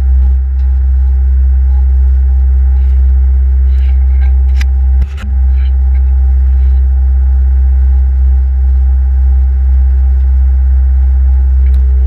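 Case skid steer loader's diesel engine running steadily with a loud, deep drone. A few sharp clanks come between about four and five seconds in, where the drone dips for a moment.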